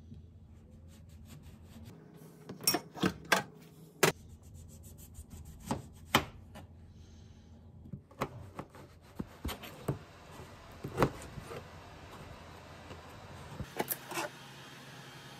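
Kitchen knife slicing through oranges and knocking against a cutting board, a dozen or so irregular sharp knocks.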